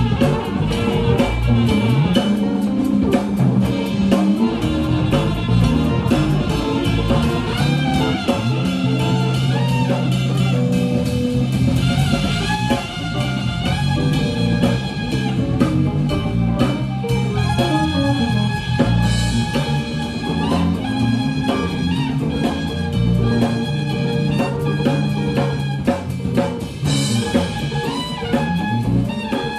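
Live small band playing jazz: a drum kit keeps a steady beat under an acoustic guitar and a moving bass part.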